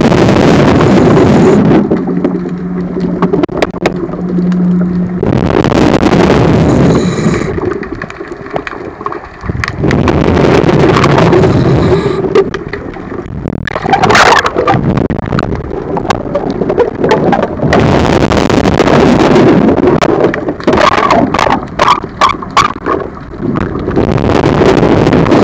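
Scuba diver breathing through a regulator underwater: loud rushes of exhaled bubbles come every few seconds, with quieter stretches between them, one carrying a steady low hum.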